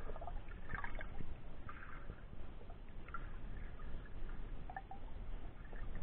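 Muffled water sounds picked up by a camera held underwater: short gurgles and bubbling about once a second over a steady low rumble.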